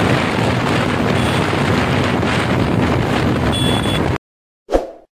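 Yamaha MT-15 V2's 155 cc single-cylinder engine running steadily in sixth gear near its top speed, about 95–98 km/h, under heavy wind rush on the microphone. The sound cuts off abruptly about four seconds in, and a brief sound effect follows.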